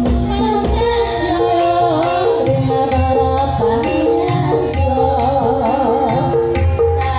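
A group of women singing a traditional Javanese song over amplified music, with regular drum beats and a repeating pattern of pitched notes beneath the wavering vocal line.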